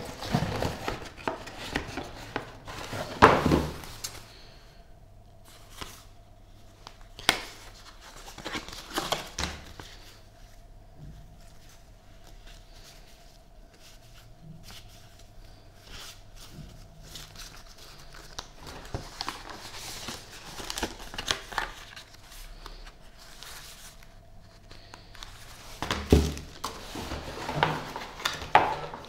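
Product packaging being unwrapped and handled: plastic and paper crinkling and tearing, with scattered knocks and clicks. The handling is busiest about three seconds in and again near the end, with a faint steady hum through the quieter middle.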